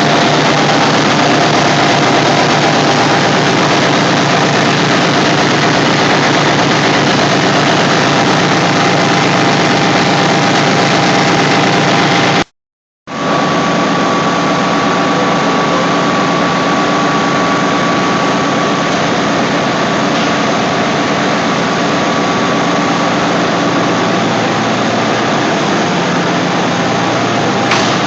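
Reciprocating air compressors, driven by high-voltage synchronous motors, running steadily: a loud, even machinery drone with a steady hum. About halfway the sound cuts out completely for half a second, then carries on, with a thin steady whine for a while after.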